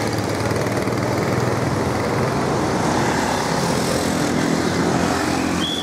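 Tour bus's diesel engine running steadily at low speed as the bus rolls slowly closer. A single high-pitched tone begins right at the end.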